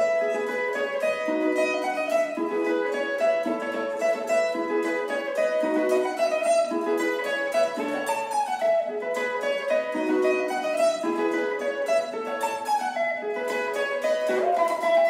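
Electric guitar played clean, with quick, rhythmic picked melody lines in a Congolese ndombolo style.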